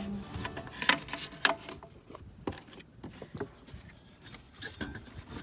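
Hand tools knocking and clinking on metal engine parts in irregular sharp clicks, the loudest two about a second and a second and a half in.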